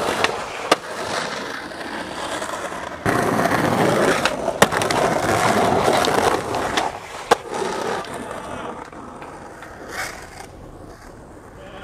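Skateboard wheels rolling over rough concrete in a steady, gritty roar that grows louder for a few seconds in the middle and then fades. Sharp clacks of the board on the ground come about four times.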